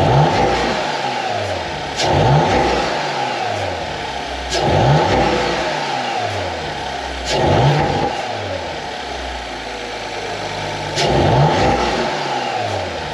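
Audi RS5's 2.9-litre twin-turbo V6 revved five times from idle while parked, each rev rising quickly and dropping back to idle, with a sharp crack from the exhaust at the start of most revs. The car now has an aftermarket carbon fiber cold air intake, and the owner can just hear a little turbo noise.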